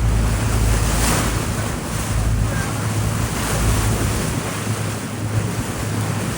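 Wind buffeting the microphone on a boat at sea, over the wash of waves and the steady low hum of the boat's engine.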